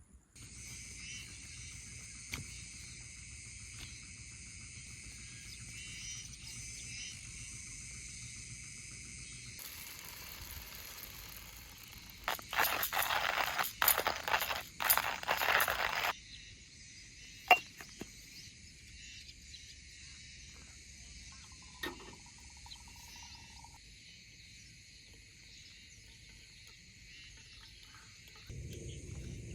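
Steady chirring of insects. Midway there are about six seconds of loud, crackling, rustling noise, followed by a few sharp clicks.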